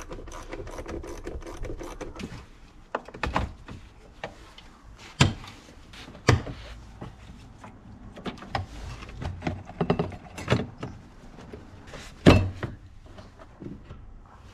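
Hummer H3's plastic air filter housing being opened by hand: a series of sharp plastic snaps and knocks as the lid's clips are released and the lid is lifted, the loudest about twelve seconds in, with rubbing and handling noise between.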